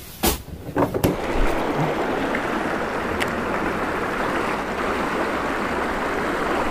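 A few sharp knocks, then from about a second in a steady rush of river water running over rocks in a shallow riffle.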